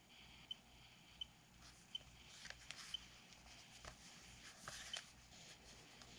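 Near silence: faint short high ticks at uneven intervals, with soft rustling twice around the middle.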